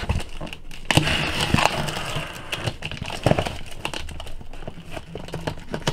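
Folding knife slitting the packing tape on a cardboard shipping box, then the tape and cardboard flaps being pulled and handled: scratchy rasps, crackles and small knocks, with the longest rasp about a second in.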